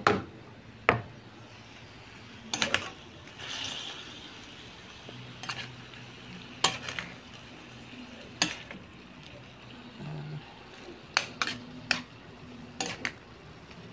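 A spatula stirring chicken, onion and tomato in a metal frying pan, knocking and scraping against the pan about a dozen times at uneven intervals, over a faint steady sizzle of the sauté.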